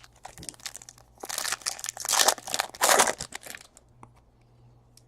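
Foil trading-card pack wrapper crinkling as it is torn open, in a few rustling bursts from about a second in until past the middle.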